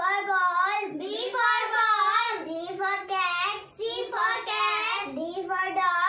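A young girl chanting the alphabet in a singsong voice, one letter and picture-word after another.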